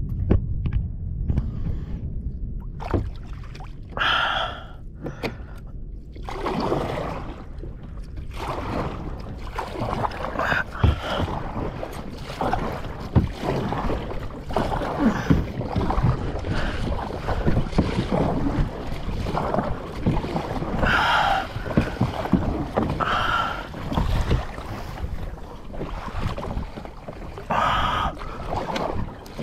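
Kayak being paddled: paddle strokes splashing in the sea every few seconds, with short knocks in between, over a steady low rumble.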